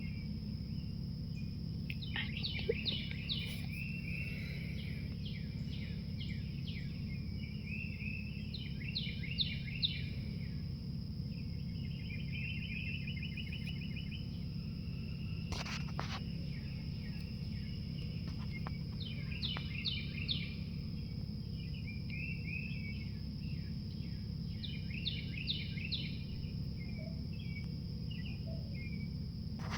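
Outdoor ambience of songbirds singing short chirpy phrases every few seconds over a steady high insect trill and a constant low rumble. A single sharp click sounds about halfway through.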